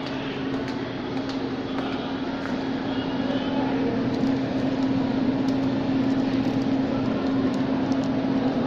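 A steady low machine hum over even background noise, slowly getting a little louder, with a few faint clicks.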